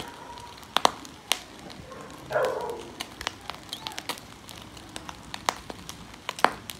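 Boiled pork pieces grilling over charcoal, with irregular sharp crackles and pops from the coals and dripping fat. A brief louder noise comes about two and a half seconds in.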